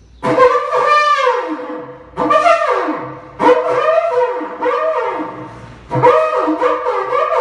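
A berrante, the Brazilian drover's cattle horn, blown in four long blasts, each starting abruptly and sagging in pitch as it ends. It is the drover's call to his fellow cowhands to come forward and help keep two meeting herds from mixing.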